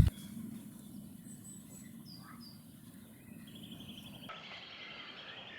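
Faint open-field ambience with a few short bird chirps. Near the end a steady, rapid high-pitched trill sets in.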